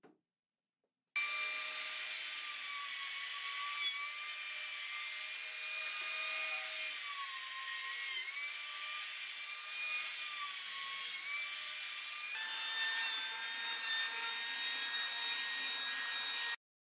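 Makita electric hand planer running and cutting across the face of a wide board: a steady high motor-and-cutterhead whine over the hiss of shaving wood. The pitch dips briefly as the blades bite harder. The whine starts about a second in, shifts pitch about twelve seconds in, and cuts off near the end.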